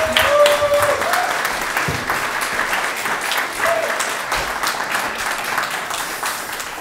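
Audience applauding, many hands clapping together, slowly dying away.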